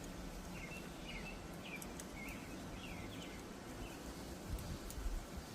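A bird chirping a run of short, falling calls, about two a second, over faint steady background noise. A few dull low knocks come near the end.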